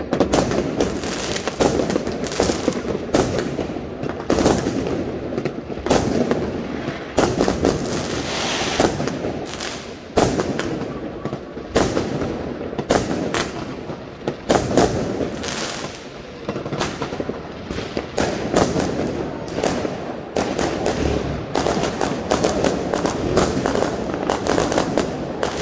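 Aerial fireworks exploding in a dense, unbroken barrage. Sharp bangs and crackles come several a second over a steady low rumble.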